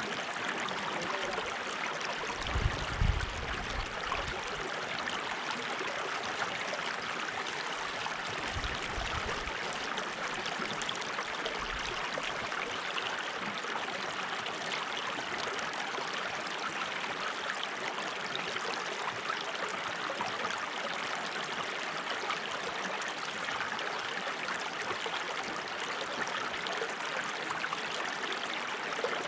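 Running water flowing steadily, an even rushing hiss without a break. A few brief low thumps come in the first dozen seconds, the loudest about three seconds in.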